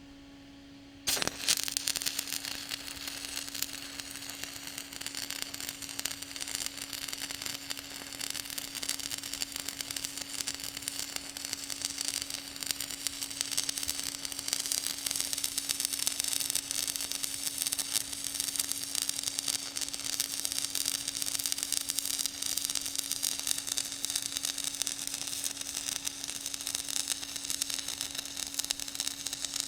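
Electric arc welding: a welding arc strikes about a second in and keeps up a steady, dense crackle, over a constant hum.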